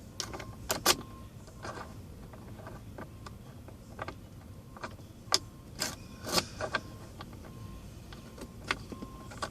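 Irregular small metallic clicks and taps of the ignition lock cylinder and its sleeve being worked by hand, with a few louder knocks about a second in and around five to six seconds in.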